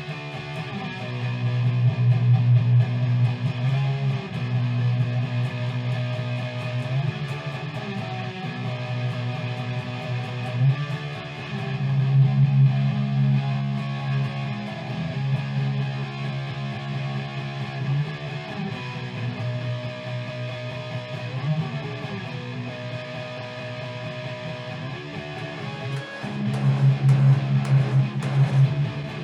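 Background music: a guitar-led track with electric guitar strumming over a bass line, getting busier and more percussive near the end.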